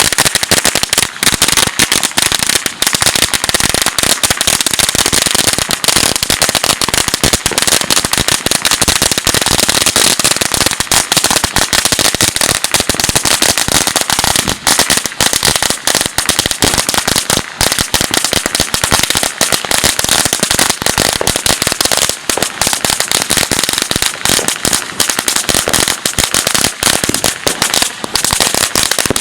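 A long string of firecrackers going off: a loud, dense, unbroken crackle of sharp pops.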